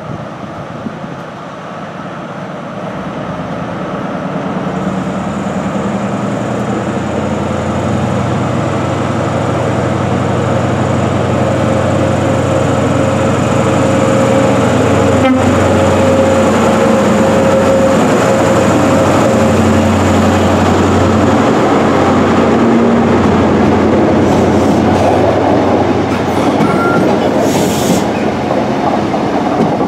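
Class 43 HST power car's diesel engine growing steadily louder as the train comes into the platform, then the coaches run past.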